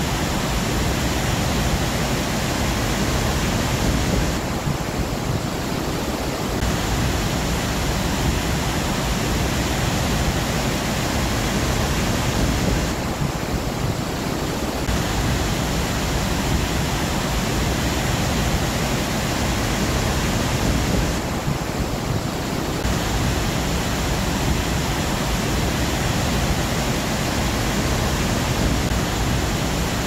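Large waterfall rushing steadily close by, an even wall of water noise, with the top end dimming briefly three times.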